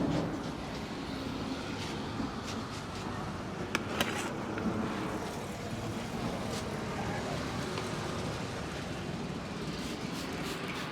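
Steady road traffic noise, with a few sharp clicks about four seconds in.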